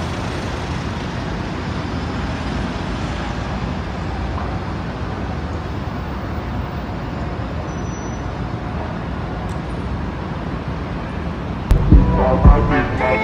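Steady road traffic: cars and a van driving past on a city street, an even rumble of engines and tyres. Near the end, upbeat music with a strong beat starts.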